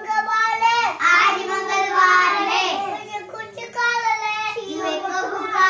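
A young child singing a nursery rhyme in a high voice, with several long held notes.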